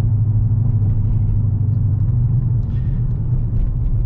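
2018 Dodge Challenger R/T Scat Pack's 6.4-litre HEMI V8, fitted with a Flowmaster muffler, running with a steady low drone and road rumble while the car is driven. The drone becomes slightly less even a little past halfway.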